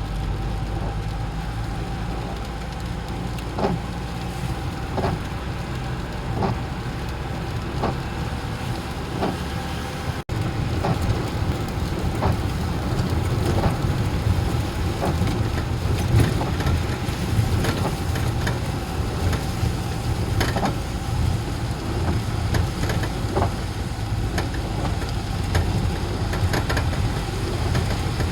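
Motor vehicle running in the rain: a steady low rumble with light, irregular taps. There is a brief break about ten seconds in, after which the rumble is louder.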